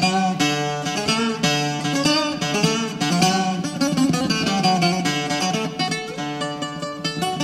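Greek bouzouki instrumental music: a plucked-string melody of quick, short notes over a steady lower accompaniment.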